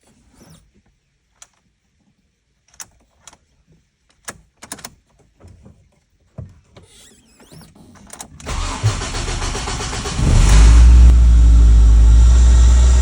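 A few light clicks, then the 2005 Ford Focus's four-cylinder engine cranks on the starter for about a second and a half and catches, settling into a steady idle. The start shows that the newly programmed transponder key has been accepted.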